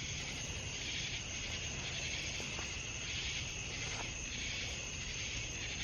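Crickets and other insects chirping steadily as a continuous high-pitched background drone.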